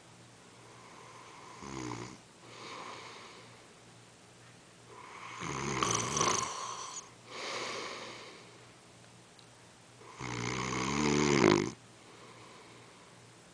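A man snoring in his sleep: three snores, about 2, 5½ and 10 seconds in. The second and third last longer, and the last is the loudest. Softer breaths follow each snore.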